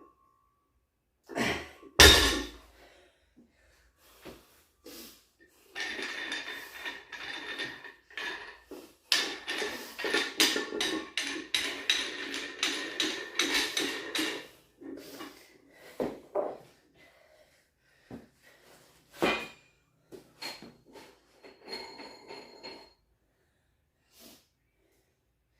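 Weight-training equipment being handled: one heavy thud about two seconds in, then several seconds of metal clattering and rattling mixed with hard breathing, and a few scattered clanks after that.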